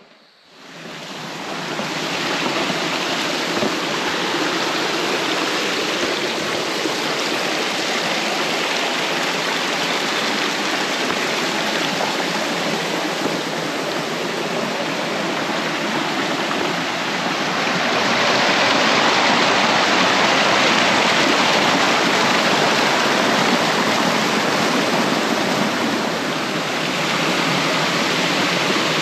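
Water of a rocky creek rushing and cascading over boulders and small falls: a steady, even rush that fades in over the first couple of seconds and grows a little louder past the middle.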